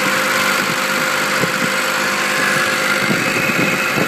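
High-speed screw slotting machine running: a steady mechanical drone with a constant whine, and light irregular clicks.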